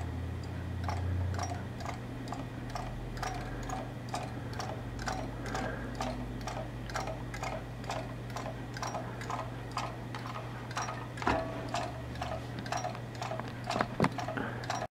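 Homemade magnet motor with a wooden wheel turning on its bearings, giving a regular tick about twice a second over a steady low hum, with a couple of sharper clicks near the end.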